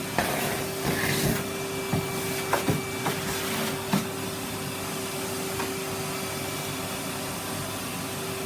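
Bagged vacuum cleaner running steadily, with a few sharp knocks in the first four seconds.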